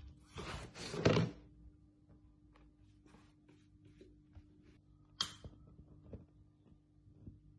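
A cat hissing once, a harsh noisy burst of about a second, followed by faint taps and a short sharp sound about five seconds in.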